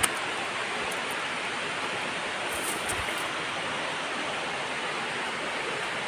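Steady rush of a waterfall: an even wash of falling-water noise that holds at one level throughout.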